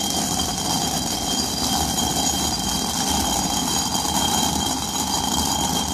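Hand-turned stone quern being rotated, the upper stone grinding steadily on the lower one as it cracks whole urad dal into split dal: a continuous rumbling, gritty grind. A steady high-pitched whine runs underneath.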